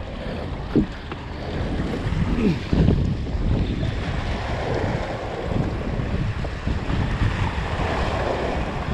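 Harbour waves sloshing and splashing against the rocks of a breakwater, with wind buffeting the microphone. A couple of sharper thumps come in the first three seconds.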